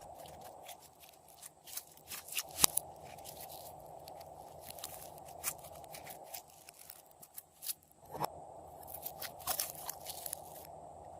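Slime being squeezed and kneaded by hand, giving clusters of sharp crackling clicks and pops over a faint steady hiss. The loudest pop comes about two and a half seconds in.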